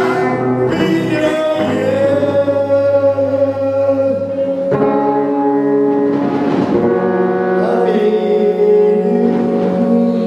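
Live band playing a slow song with long held chords, which change about five and seven seconds in. An electric guitar plays under a man's singing voice through a microphone.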